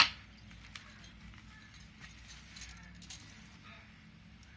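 A sharp click at the start, then faint handling: plastic packaging rustling and small light clicks of stainless steel drinking straws being moved in their pouch.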